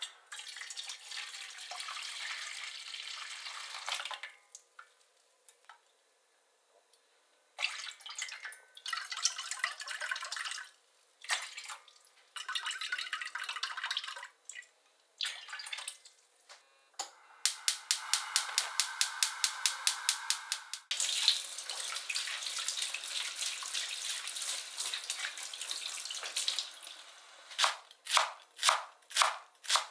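Liquid poured in stretches into a metal pot: a stream of stock from a glass jug, then soy sauce poured into a small stainless cup, with a quick run of light ticks partway through. Near the end a large kitchen knife slices a Japanese leek on a cutting board, striking the board in even strokes about twice a second.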